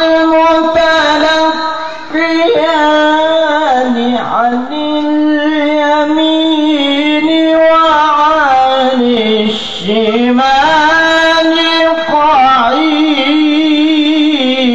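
A male qori reciting the Quran in the melodic tilawah style. He holds long, wavering notes that slide in pitch, with short breaks for breath about two and ten seconds in.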